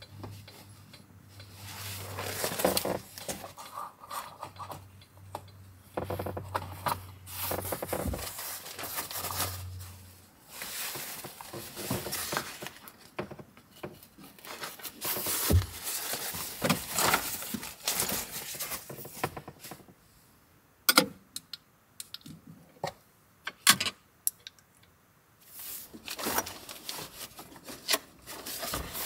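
Rustling and scraping of fabric and gear being handled and fitted in place, then a few sharp clicks and knocks in the last third.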